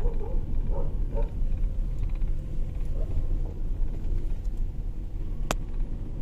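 Steady low rumble of a moving vehicle, with one sharp click about five and a half seconds in.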